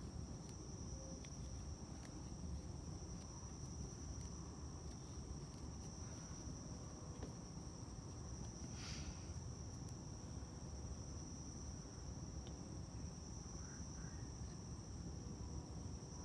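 Quiet background noise: a low rumble with a steady high-pitched whine over it, and a few faint soft clicks.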